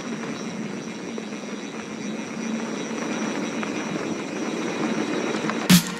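Steady rumbling noise of a mountain bike being ridden along a dirt singletrack, with tyre roar and wind on the microphone and a faint high whine. A sharp knock just before the end.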